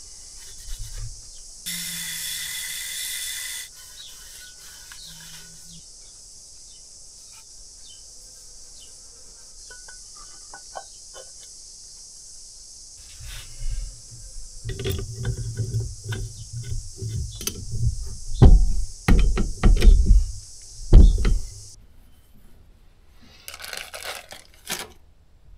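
Metal hydraulic lift housing parts of a Kubota B7100 tractor being handled on a wooden workbench: a run of knocks and thumps in the second half, with a brief hissing rush about two seconds in. A plastic parts bag crinkles near the end, over a steady high hiss that stops shortly before it.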